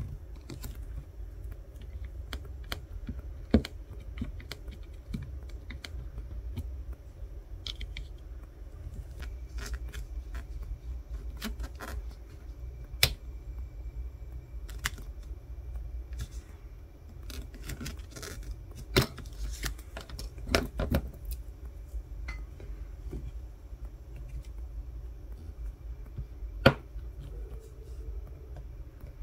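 Scattered small clicks, taps and scrapes of hand tools and parts being handled on an opened iPhone 14 Pro (film peeled off, the battery pried out with a card, plastic pry tools on the metal frame), over a steady low hum. A few sharper clicks stand out among the softer handling noises.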